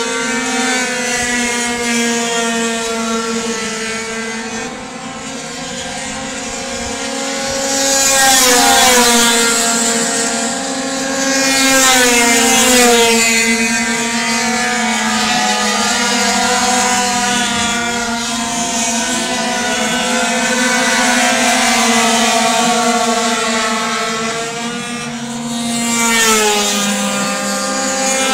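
Several racing scooters' engines running at high revs, their tones overlapping and wavering as they lap. A few times a scooter passes close, swelling louder with its pitch sliding down as it goes by.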